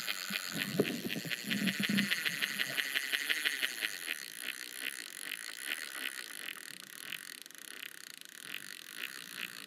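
A fishing reel's clicker ticking rapidly as a fish pulls line off the spool on a bite, about six ticks a second at first, then slowing and thinning out. There are soft handling bumps from the rod in the first two seconds.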